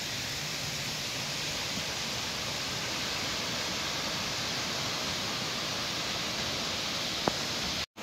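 Waterfall water falling, a steady, even rushing hiss. It is broken by a faint click near the end and cuts out for a moment just before the end.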